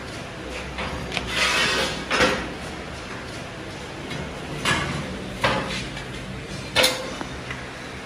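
Scraping and clanking of a heavy coil of iron wire being handled and slid onto a steel reel stand, in several short bursts over a low steady hum.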